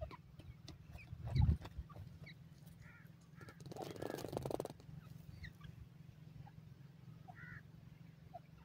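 Short scattered bird chirps over a low rumble. A heavy thump comes about a second and a half in, and a crackling, rustling burst lasting about a second comes around four seconds in.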